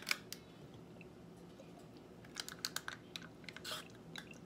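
A plastic hot sauce bottle being handled as it is unsealed, opened and tipped over the fish. Light scattered clicks and taps, with a quick cluster about two and a half seconds in and a louder one shortly before the end.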